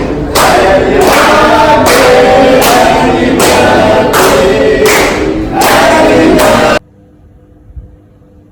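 Loud background music with choir-like singing, cutting off suddenly about a second and a half before the end. Only a faint steady hum and one small click remain after it.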